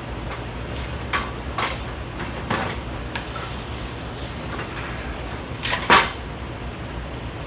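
Metal clinks and knocks from parts being worked loose and pulled out of a pickup truck door: a few separate knocks in the first three seconds, then a louder rattling clatter a little before the end. A steady low hum runs underneath.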